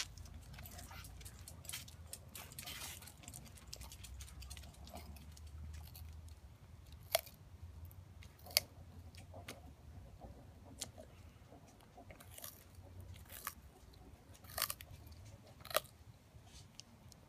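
Sulcata tortoise biting and chewing baby carrots: irregular crisp crunches, with a handful of sharper snapping bites spread through.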